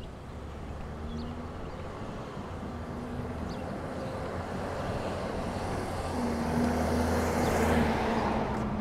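A box delivery truck approaching and driving past, its low engine drone and tyre noise growing steadily louder and peaking near the end.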